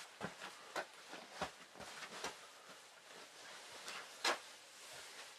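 Handling noise close to the microphone of a hidden camera: scattered light knocks and rustles at irregular intervals, with a sharper knock about four seconds in.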